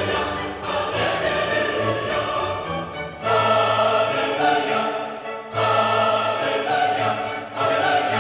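Background music: dramatic orchestral and choral music in phrases, the phrases starting afresh about three seconds in and again between five and six seconds in.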